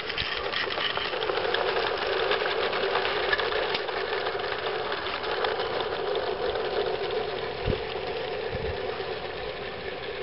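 A 16mm scale live-steam model locomotive running steadily, with a fast, even mechanical beat.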